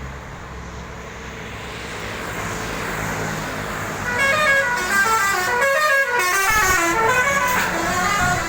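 A bus's engine and road noise grow louder, then from about four seconds in a basuri telolet musical horn plays a quick tune of short stepped notes.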